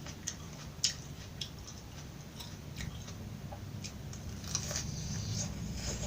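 Close-miked chewing of raw vegetables: irregular crisp crunches, roughly one or two a second, over a low steady hum.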